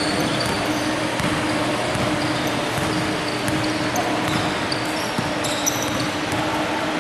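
Basketball being dribbled on a hardwood gym floor, with short high squeaks scattered through and a steady hum from the hall underneath.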